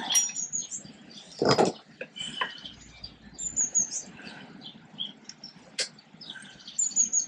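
Hand tools clinking and scraping against the drum-brake shoes and return springs of a 1955 Fordson Major tractor's rear brake, with one louder metal clank about a second and a half in. A small bird chirps short high-pitched phrases several times in the background.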